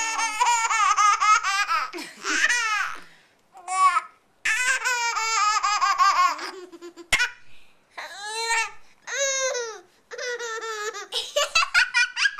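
Baby laughing hard in about five high-pitched bouts of rapid, pulsing giggles, with short breaks between them.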